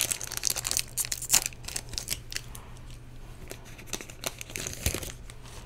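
Plastic booster-pack wrapper being torn open and crinkled by hand. Dense crackling in the first second and a half, then scattered crackles and ticks.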